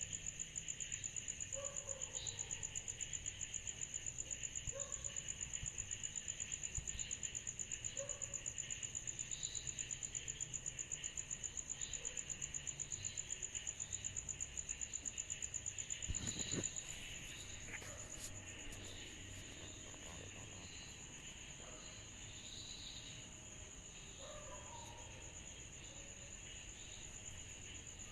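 A chorus of cicadas on a summer night: a high, steady, rapidly pulsing trill with a lower shimmering layer beneath it. About two-thirds of the way in, the pulsing stops and the chorus goes on a little quieter as an even drone. A few short, faint, lower calls are scattered through it.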